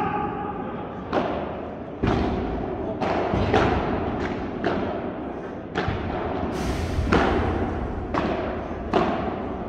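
Padel rally: the ball is struck by padel rackets and bounces on the court, about ten sharp hits roughly a second apart. Each hit echoes in a large indoor hall.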